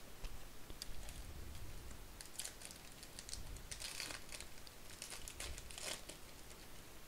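Plastic wrapper of a 2023 Topps Series 2 baseball card pack crinkling in the hands as it is opened. The crackling comes in quick clusters and is thickest in the middle of the stretch.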